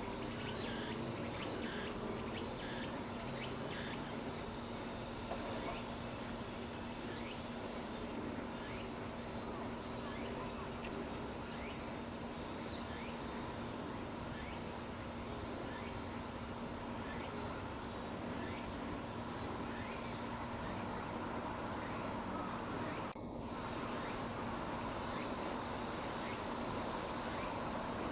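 Cicadas and other insects singing: short pulsed trills repeat about once a second over a steady high-pitched buzz, and the trills fade after the first ten seconds or so.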